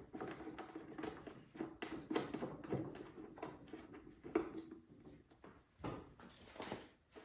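Irregular clicks, taps and knocks of parts being handled and fitted back together, thinning out near the end.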